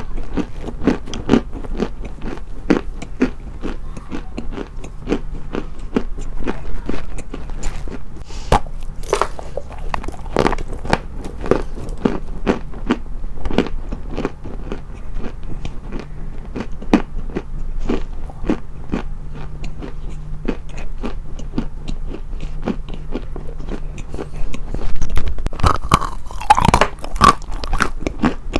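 Close-miked crunching, as of something brittle being bitten and chewed: a continuous run of sharp crunches, with a louder cluster near the end.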